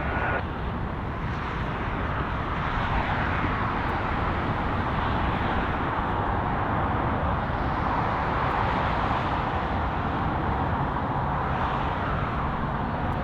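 Jet airliner engine noise across the airfield: a steady rumble with a hiss that swells and eases several times.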